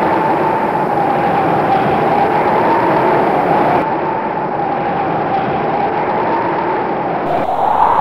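Steady rush of wind and tyre noise from a camera mounted on a racing bicycle riding at speed in a bunch of road cyclists.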